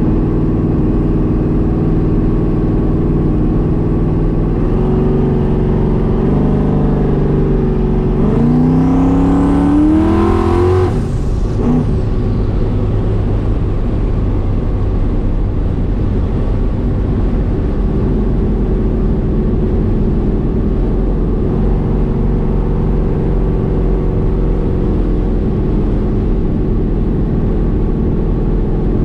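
Twin-turbocharged Ford Mustang 4.6-litre two-valve V8 heard from inside the cabin while driving. The engine note climbs in pitch from about five seconds in and rises steeply with a high whine over it, then drops off suddenly near eleven seconds as the throttle is let off. After that it settles back to a steady cruise.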